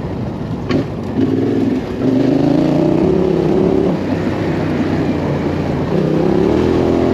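Motorcycle engine pulling under throttle: it climbs in pitch about two seconds in, eases off around four seconds, then pulls again near six seconds, picked up by a camera-mounted microphone. A short sharp click just under a second in.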